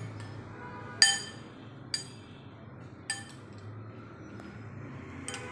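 Metal spoon clinking against a glass bowl while dragon fruit pieces are mixed: three ringing clinks about a second apart, the first the loudest.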